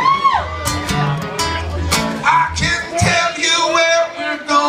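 Acoustic guitar strummed in a live solo performance, with a voice singing long wordless notes over the chords.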